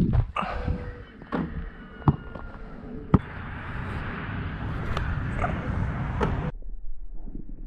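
A basketball being handled and tossed: a few sharp thumps and knocks of hands and ball in the first few seconds. Then a steady rushing hiss runs for about three seconds and cuts off suddenly.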